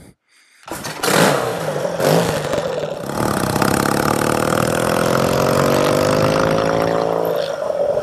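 Yamaha XS650 chopper's parallel-twin engine under way: a couple of throttle blips about one and two seconds in, then running in gear with its pitch rising steadily as the bike accelerates, dipping briefly near the end.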